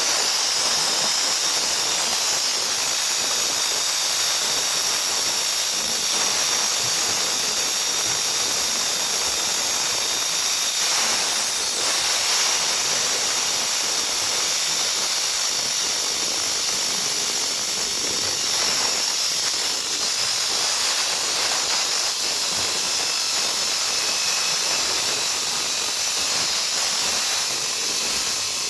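Concrete-cutting saw running steadily through a reinforced concrete slab: a continuous high-pitched grinding hiss that holds the same level without a break.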